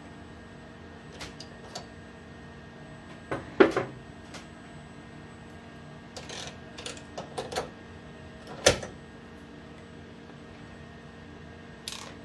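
Metal clicks and clanks as a lathe's quick-change tool post is unlocked by its lever and a tool holder is slid off and handled, in scattered groups with a loud knock just under four seconds in and another sharp knock near nine seconds. A steady hum runs underneath.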